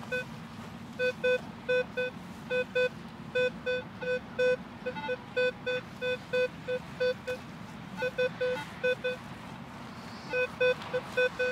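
Minelab Equinox 600 metal detector sounding its target tone: a run of short, even beeps on one mid pitch, about three a second, with a brief pause near the end, as the coil is swept over metal. The signal is from a shallow target that reads 13–14 on the display, such as foil or other surface trash.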